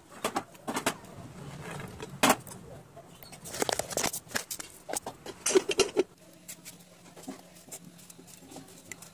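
Several irregular knocks and clinks of steel cookware being handled, the loudest a little after 2 s and a cluster near 6 s, over a faint steady low hum.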